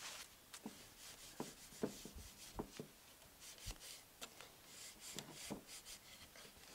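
Cloth in a gloved hand rubbing wax into the wooden back uprights of a chair: faint, repeated rubbing strokes, with a few light knocks in the first few seconds.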